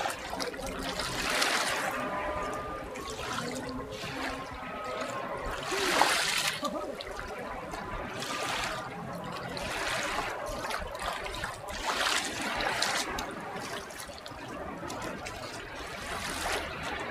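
Shallow sea water lapping and washing on a sandy shore, coming in irregular surges every couple of seconds, with splashing from feet wading ankle-deep in the shallows.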